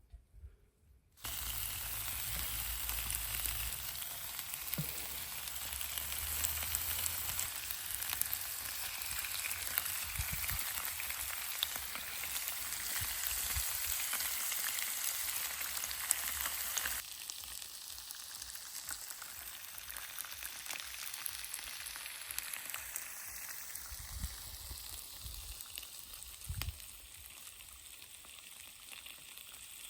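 Food sizzling steadily in a frying pan. It starts abruptly about a second in, with a few low knocks, and drops to a quieter, thinner sizzle a little over halfway through.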